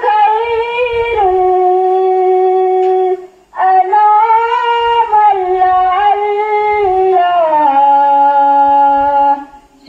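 A student chanting a naat unaccompanied in a high voice. There are two long, drawn-out phrases of held notes that step down in pitch, with a breath about three and a half seconds in.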